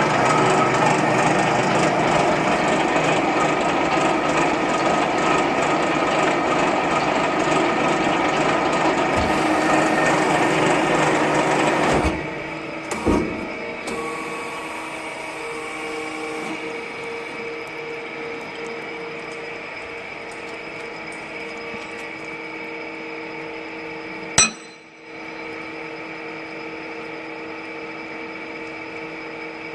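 Conveyor roller shaft end-milling machine running, its cutters milling flats and grooves into the steel shaft ends with a dense grinding noise. About twelve seconds in the noise drops abruptly, followed by a couple of knocks, and the machine runs on with a quieter steady hum. A single sharp click comes near the end.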